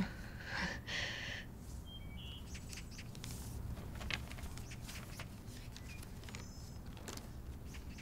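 Letter paper rustling for about a second, as the letter is unfolded, about half a second in. After it comes a faint, steady background with a few short, high bird chirps.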